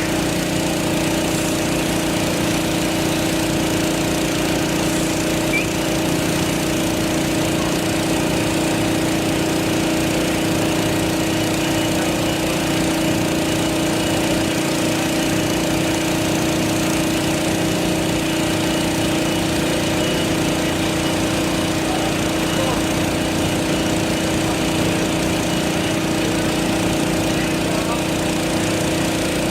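An engine running steadily at a constant speed, with a steady hum and no change in pitch.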